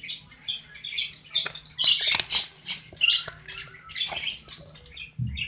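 Handling noise from a phone: scattered short clicks and rustles, with brief high squeak-like sounds mixed in.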